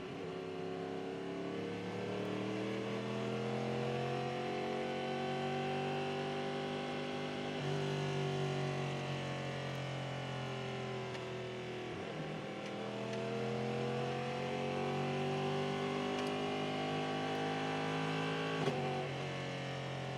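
Onboard sound of the Cadillac V-Series.R prototype's V8 engine at cooldown pace, its pitch rising slowly as it pulls, dropping briefly about twelve seconds in, then rising again. Near the end the note breaks with a sharp click at a gear change or lift.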